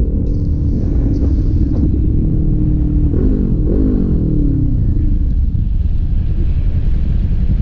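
Sport motorcycle engine running at road speed under heavy wind rumble on the helmet microphone. About three seconds in, the revs rise and fall twice in quick blips, as on downshifting into a tight curve; after that the engine note sinks under the wind.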